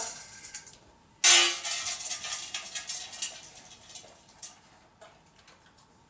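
Metal dog dish clattering and ringing: a sudden loud metallic clash about a second in, with a ring that dies away over about two seconds, then a few faint clicks.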